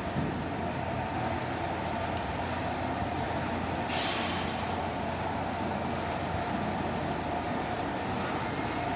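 Steady mechanical drone of workshop background noise, with a brief hiss about four seconds in.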